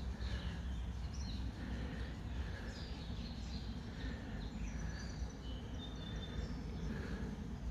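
Birds chirping and whistling in short scattered calls over a steady low rumble.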